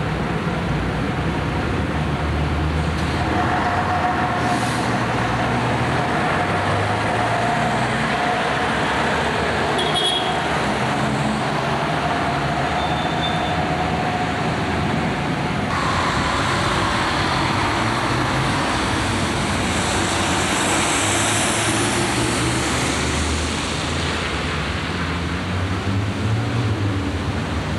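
Road traffic at a street intersection: motor vehicles running and driving past in a steady mix of engine hum and tyre noise, with a vehicle passing close about two-thirds of the way in.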